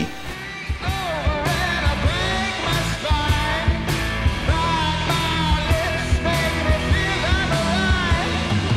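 Rock band playing a song: a man singing lead over guitars, with drums keeping a steady beat.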